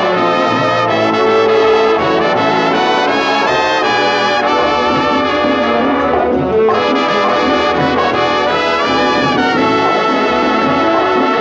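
Instrumental break of a dance-band song, led by a brass section of trumpets and trombones playing held chords and runs.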